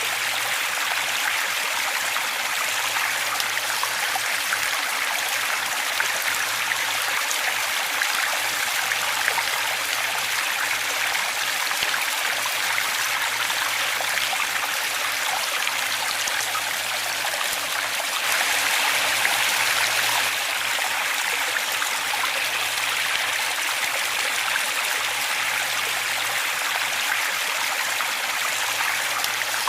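Waterfall water running in a steady, even rush, swelling slightly for a couple of seconds about two-thirds of the way through.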